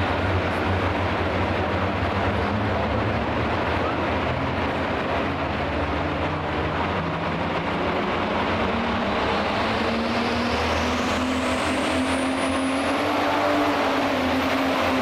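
Ford pulling tractor's engine running loud and steady at the starting line. Over the last few seconds it builds as the tractor loads up to launch, with a high whine climbing in pitch.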